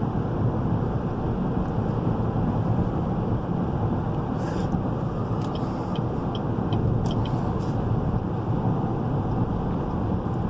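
Steady road and tyre noise heard from inside the cabin of a 2017 GMC Yukon Denali cruising at highway speed, with a few faint ticks midway.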